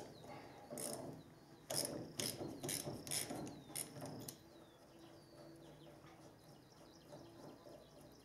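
Ratchet wrench clicking on a bolt of a combine's drive, in several short bursts over the first four seconds, then only faintly.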